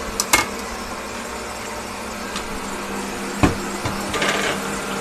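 Electric mixer whipping egg whites for marshmallow, a steady hum. Over it comes a sharp knock just after the start and a louder thump about three and a half seconds in, followed by a brief rustle.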